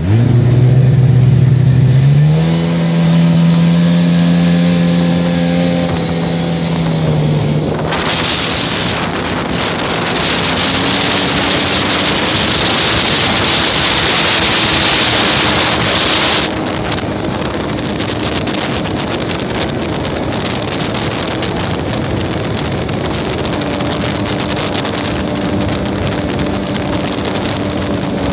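Sea-Doo personal watercraft engine running under way on a river. Its pitch rises about two seconds in and holds. A loud rushing hiss covers the engine for about eight seconds in the middle and cuts off suddenly, leaving a steady engine drone.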